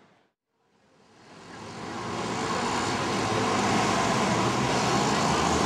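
Road traffic on a city street, with a bus driving past. It fades in from silence over the first couple of seconds, then runs at a steady level.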